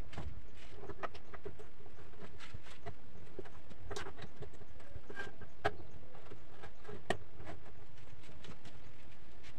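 Scattered light knocks and taps on wood, with two sharper clicks a little past the middle, over a steady background hiss: handling of a plywood panel and movement on a wooden plank deck.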